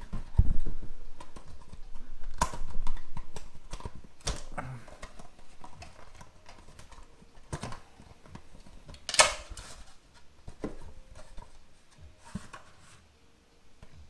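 A product box being handled and opened: scattered clicks, taps and rustles of cardboard and a plastic tray, with a dull thump about half a second in and a sharper click about nine seconds in.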